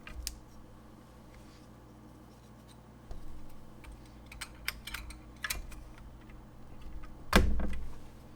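Keycaps being pulled off a Keychron Q1 Pro mechanical keyboard with a keycap puller: scattered sharp plastic clicks and scrapes, with one louder thump near the end.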